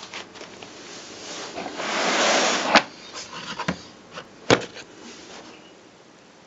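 Handling noise: a rustle swelling about two seconds in, then two sharp clicks about a second and a half apart, with a few fainter knocks in between; no drill motor running.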